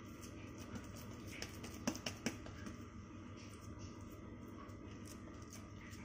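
Soft pats of a hand flattening sticky pumpkin dough on a wet cotton cloth. A few sharper taps come about two seconds in, over a steady low room hum.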